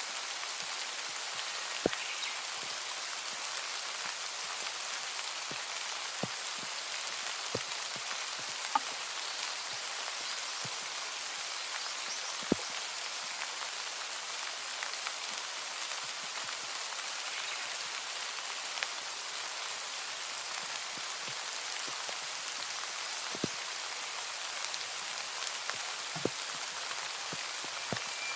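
Steady rain falling in an even hiss, with single louder drops hitting close by every few seconds.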